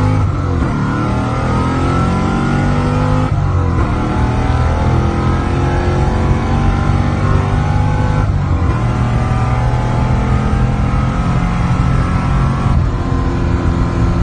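A car engine accelerating hard through the gears. Its pitch climbs steadily and drops sharply at each of three upshifts, about three, eight and thirteen seconds in.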